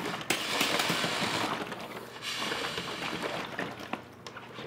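Holt Industries manual fluid extractor dispensing under pressure: air and the last of the water sputter and hiss out of its hose into a plastic gallon jug. The sound breaks off briefly about a third of the way in, then resumes and fades toward the end.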